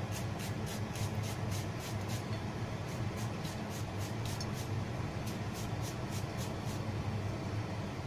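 Julienne peeler scraping down a cucumber, cutting it into thin strips, in three runs of quick strokes about four a second with short pauses between. A steady low hum runs underneath.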